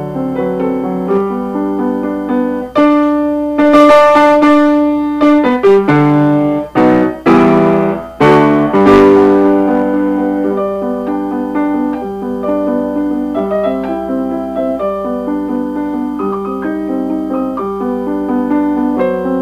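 Piano music: a repeated chord pattern, broken about three seconds in by several loud struck chords that ring out, after which the quieter repeated pattern returns.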